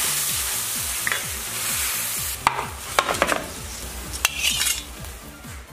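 Braised pork hock sizzling in a wok of thick, cooked-down sauce at the end of braising. A metal skimmer then scrapes and knocks against the wok and plate as the meat is lifted out, with several sharp clicks in the second half.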